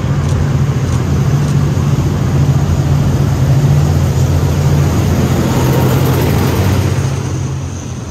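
GE diesel-electric locomotive passing with a train, its engine droning steadily with a low hum and a broad rush of running noise, a few light clicks at the start. The sound eases off near the end.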